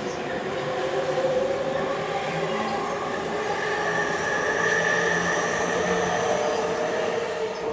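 Electric commuter train moving along the tracks through the station, a steady running noise with several held tones, loudest in the middle.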